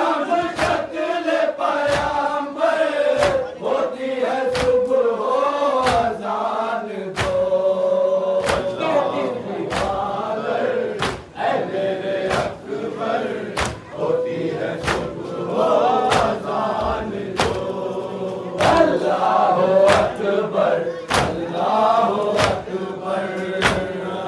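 A crowd of men chanting a Muharram noha (lament) in unison, with rhythmic matam: open-handed chest-beating in time, about three loud slaps every two seconds.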